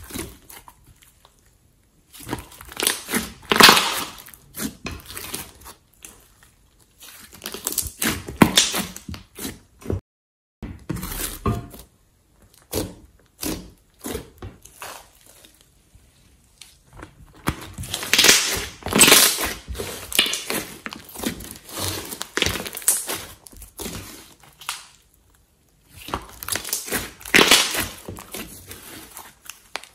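Hands squeezing, poking and pressing a lump of glossy slime, giving wet squishing sounds in bursts separated by short pauses.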